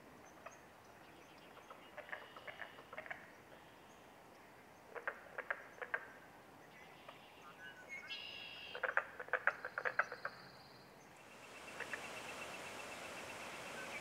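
Frogs calling in a wetland: three bursts of rapid clicking calls, with a few bird chirps among them near the middle. Toward the end a steady hiss sets in, carrying a thin, continuous high trill.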